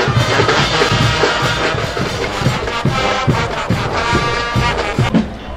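Guggenmusik brass band playing live: brass horns and sousaphones over a steady beat of drums and cymbals.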